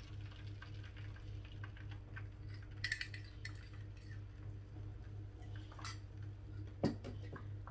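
A metal utensil clinks against a small ceramic bowl as the last of the beaten eggs is scraped into the frying pan, with a few sharp clicks and a louder knock about seven seconds in. A steady low hum runs underneath.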